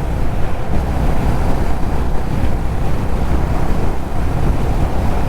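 Steady wind rush on the microphone of a motorcycle riding at highway speed, with a constant low rumble underneath.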